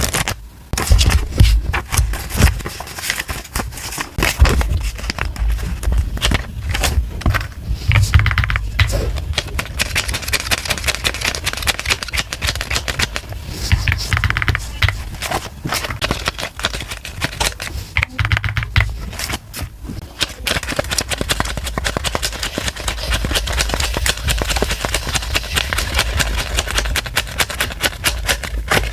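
Close-up handling of paper money and envelopes: rustling and scraping paper broken by many quick clicks and taps, with low thumps against a table.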